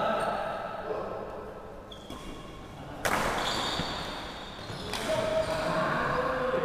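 Badminton play on a wooden court: sharp racket strikes on the shuttlecock and footfalls echoing around the hall, the loudest hit about three seconds in and another near five seconds, with players' voices faintly in the background.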